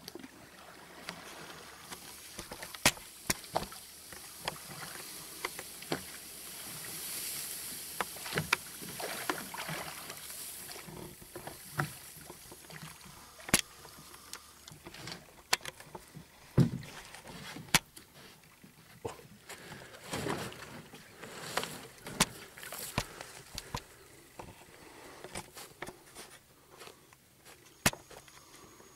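Wooden rowboat being rowed with a pair of oars, the blades swishing and splashing through the water. Scattered sharp knocks come irregularly throughout.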